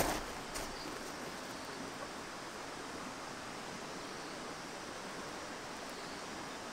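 Steady, even rushing of outdoor ambience, with a brief rustle in the first half-second.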